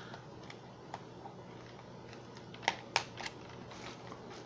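Scissors snipping at toy packaging: a few sharp clicks, the two loudest close together about three seconds in.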